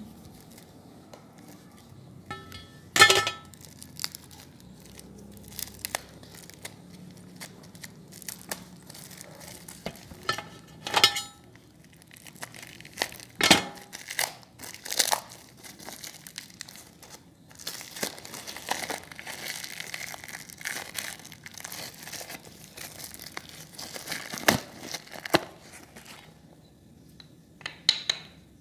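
Plastic wrappers crinkling and tearing as wrapped bars are unpacked by hand. Now and then a sharp knock or click cuts through, about half a dozen times, as the bars and wrapping handle against a steel plate.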